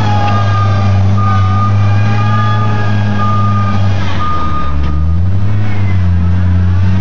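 John Deere 333D compact track loader's diesel engine running steadily while its backup alarm beeps about once a second. The beeping stops about five seconds in as the engine's pitch dips and then rises.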